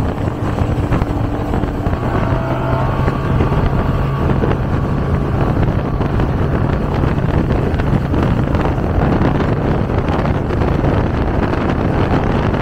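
Powerboat outboard engines running at speed, with wind buffeting the microphone and water rushing past the hull; a steady engine note holds for several seconds in the first half.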